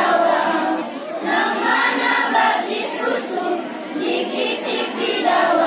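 A school choir of young teenage students singing together, many voices at once, led by a conductor.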